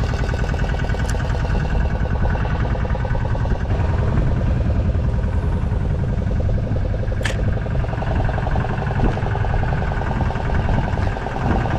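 Boat engine running steadily at a constant pitch, with a single sharp click about seven seconds in.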